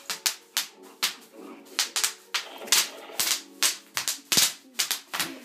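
Bubble wrap popping underfoot: an irregular run of sharp pops, some in quick pairs, as someone steps and stamps on a sheet laid on the floor.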